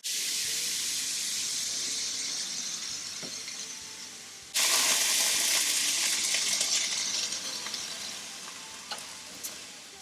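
Food sizzling in a hot frying pan: a loud hiss that starts abruptly and slowly dies down, then comes back louder about four and a half seconds in and fades again. A few faint clicks near the end.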